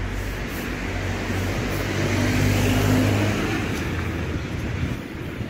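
A car passing by on the street: engine hum and tyre noise swell to a peak about halfway through, then fade as it drives away.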